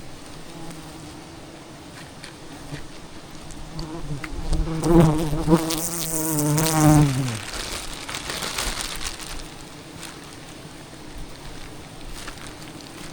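Wild honeybees buzzing in a steady hum; about halfway through, one flies close past the microphone, its buzz swelling loud for a few seconds and then dropping in pitch as it moves away.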